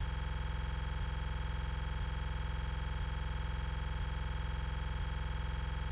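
A steady electronic buzz with a strong low hum, unchanging throughout.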